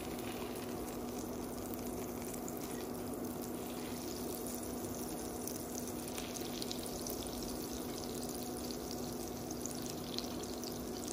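Butter melting and sizzling in a hot non-stick frying pan, a soft fine crackle that grows busier after a few seconds as the butter foams. A steady low hum runs underneath.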